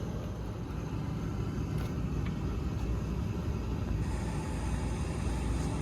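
Steady low rumble of a rooftop HVAC unit running, with no distinct tones or knocks.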